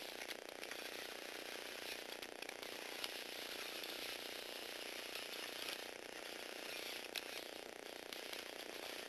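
Lego Technic robot's small electric motor and plastic gear train whirring steadily as it drives and turns, with a few sharp clicks from the mechanism.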